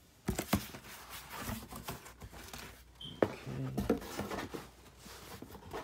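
Cardboard shipping box being opened by hand: flaps lifted and folded back, with rustling scrapes and a few sharp knocks of cardboard, the loudest about three seconds in.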